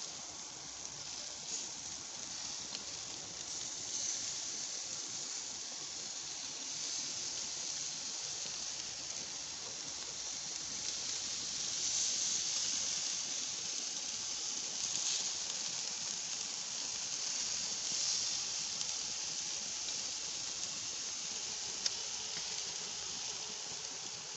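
Sauce-glazed chicken drumsticks sizzling on a gas grill: a steady hiss that swells a few times in the second half.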